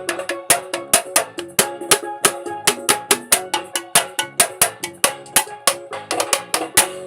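Band music with a drummer playing along: bright, sharp percussion strikes at a steady pace of about three a second over held keyboard-like chords.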